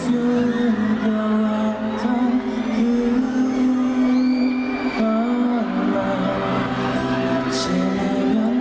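Live music: a man singing to an acoustic guitar.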